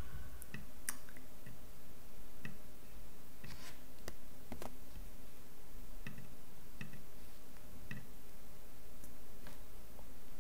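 Computer mouse clicking: about a dozen short single clicks at irregular intervals, over a faint steady low hum.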